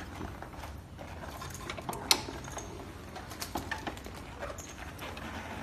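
Scattered light clicks and clinks of small hard objects, the sharpest about two seconds in, over a low steady hum.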